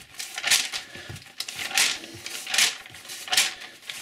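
Glossy magazine pages being turned by hand: about four quick paper swishes and rustles as the pages are flipped over.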